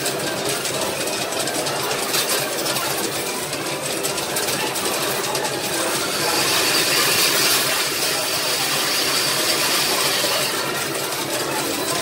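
Coin pusher arcade machine running: tokens clinking and rattling on the moving pusher tray over a steady arcade din. The sound grows brighter and hissier from about halfway through until near the end.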